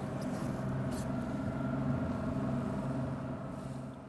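Boat motor running steadily at an even pitch, fading out near the end.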